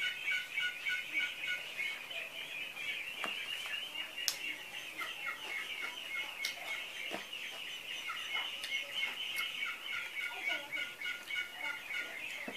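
A flock of ducks quacking in the background, a continuous chatter of rapid, overlapping calls, with a few small clicks.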